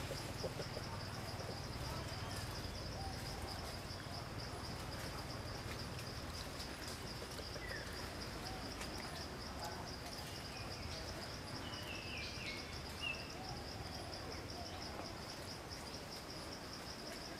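Steady insect chorus: a continuous high, finely pulsing trill, with a few short bird chirps about twelve seconds in.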